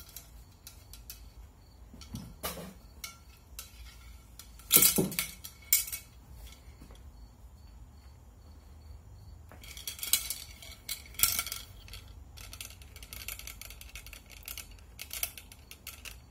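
A metal cleaning rod clinking and knocking against steel shotgun barrels as a pad is pushed through the bore and the rod is handled, with one sharp knock about five seconds in.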